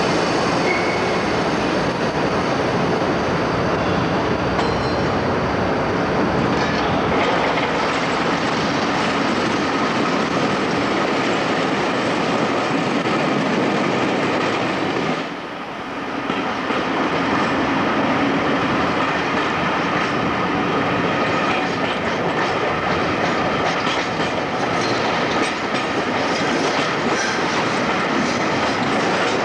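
Moving train heard from an open carriage window: a steady rumble of wheels on track with clickety-clack over the rail joints and a little wheel squeal. It drops briefly quieter about fifteen seconds in.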